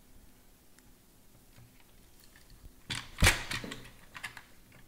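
Hard plastic clicking and clatter as a replacement wheel is slid onto the robot mop's drive axle and pressed against the plastic chassis: light handling clicks, then a loud clatter about three seconds in, followed by a few smaller clicks.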